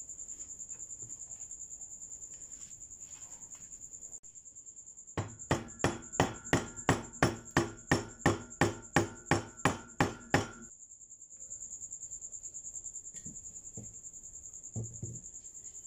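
Hammer blows at an even pace, about three a second for some five seconds, driving the new wooden handle onto the restored spatula's tang, each blow with a ringing tone. A high steady insect-like chirring runs before and after the blows.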